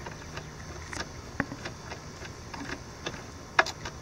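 Scattered light clicks and metallic taps of a small socket tool as two little bolts are snugged up on an outboard engine's bracket, with one sharper click near the end.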